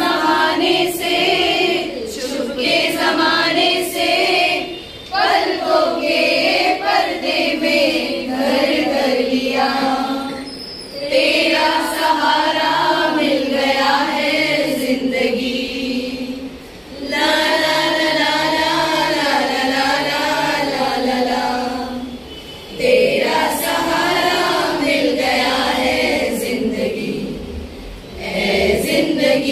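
A group of women singing a song together in chorus, in long phrases with short breaks between them about every five to six seconds.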